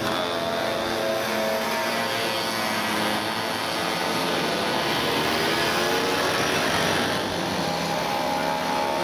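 A stream of small 50 cc two-stroke mopeds and motorcycles riding past one after another, many buzzing engines overlapping. Their pitches rise and fall as individual machines pass and pull away.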